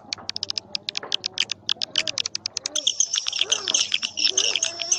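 Swiftlet calling-sound recording, of the kind played to lure swiftlets into nest houses: rapid, high, twittering chirps and clicks in dense runs. A fuller, steadier chirping joins about three seconds in, with lower warbling calls underneath.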